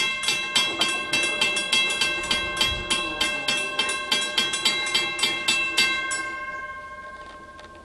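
Railroad grade-crossing bell ringing with quick, evenly spaced strikes, about three or four a second. It stops about six seconds in, and its ring fades away.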